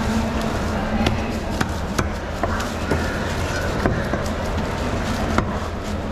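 Knife chopping into skipjack tuna and knocking on the cutting board: sharp, irregular knocks every half second to a second over a steady background hum.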